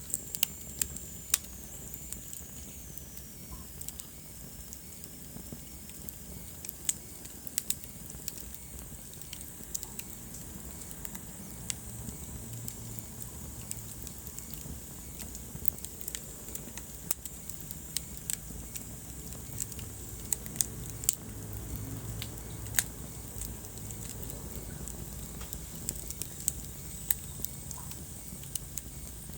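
Wood fire crackling in a fireplace: irregular sharp pops and snaps over a steady low rumble of the flames, with a faint high whistle that falls in pitch over the first few seconds.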